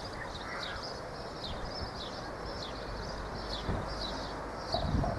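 A bird repeating a short, high, falling chirp about every two-thirds of a second, over a steady low rumble of wind.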